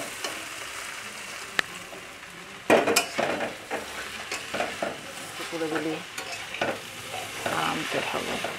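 Noodles and scrambled egg sizzling in a hot metal wok while a metal spatula stirs and tosses them, with one sharp tap before the stirring starts. From about three seconds in, the spatula scrapes and clatters against the pan in quick, irregular strokes.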